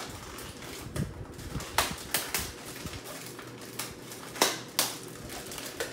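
Plastic wrapper of a sleeve of Oreo cookies crinkling as it is opened and handled, a run of irregular sharp crackles with a few louder ones.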